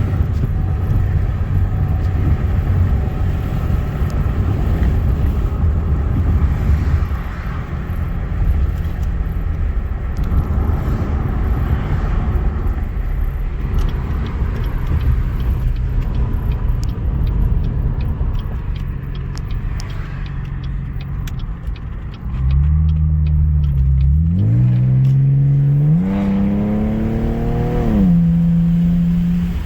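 Muffler-deleted Cadillac ATS exhaust under way: a steady low rumble for most of the stretch. About three-quarters through, the engine note climbs in pitch in two pulls as it accelerates, then drops to a lower steady note near the end.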